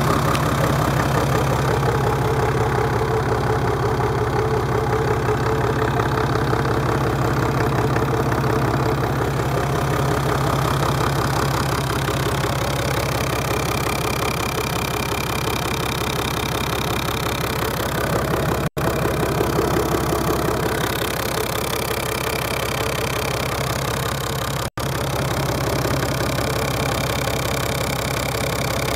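Perkins turbo-diesel engine running at a steady idle. The sound cuts out for an instant twice, in the latter half.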